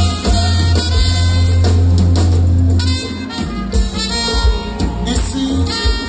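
Live Haitian konpa band playing, with electric guitars, bass, keyboards, drum kit, congas and trumpet. A deep bass note is held for about the first three seconds, then the groove picks back up.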